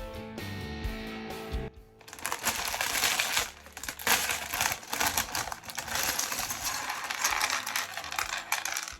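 Background music that stops about two seconds in, followed by continuous crinkling and rattling from LEGO parts bags and plastic bricks being handled.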